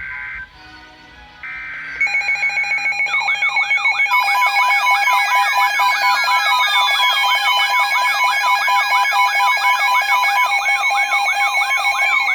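Several electronic alarms going off at once, set off by a power surge: after two short steady beeps, a dense layer of steady alert tones and fast warbling siren sweeps starts about two seconds in and keeps sounding, with a few slow falling tones sliding through it.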